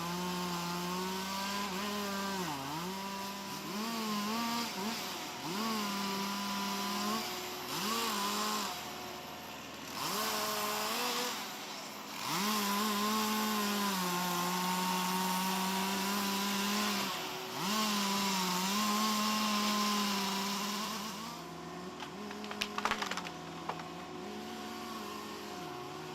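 Two-stroke chainsaw running at high revs, its pitch dipping and recovering again and again as it loads up in a cut and is released. Near the end it drops back to a quieter run, with a few sharp clicks.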